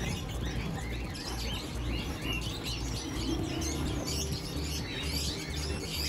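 Many caged birds, budgerigars among them, chirping constantly together, a dense chorus of short, overlapping high chirps.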